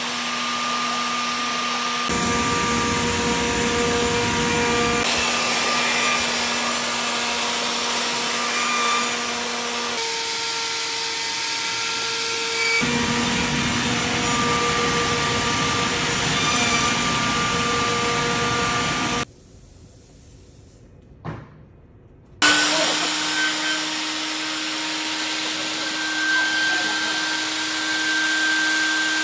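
Avid CNC router spindle running a wide surfacing bit across a slab: a steady high whine over the rush of cutting and dust extraction. The pitch of the whine jumps at several edits. About two-thirds through, a quieter stretch of a few seconds holds a single click.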